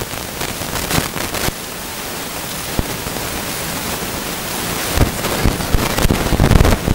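Steady rushing wind and water noise on the deck of a moving tour boat, with gusts buffeting the microphone in low thumps from about five seconds in.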